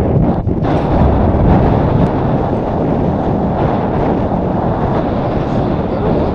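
Strong wind buffeting the microphone of a head-mounted action camera: a loud, steady low rumble.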